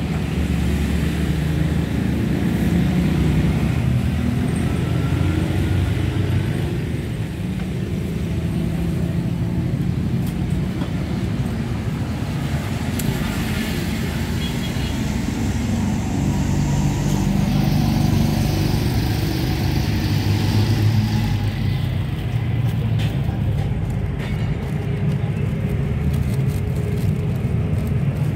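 Steady low rumble of road traffic, motor vehicles running and passing.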